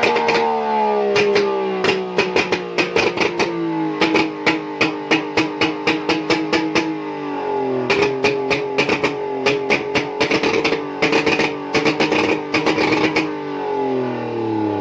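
Two-stroke engine running out of the car while its connecting rod is checked by ear. The revs sink slowly, pick up again about halfway through and sink once more near the end, with a rapid clatter of sharp knocks throughout.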